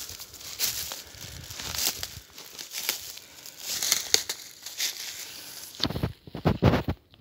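Footsteps crunching through dry fallen leaves, an uneven run of crisp rustling crunches. Near the end the crunching stops and a few louder, low bumps take over.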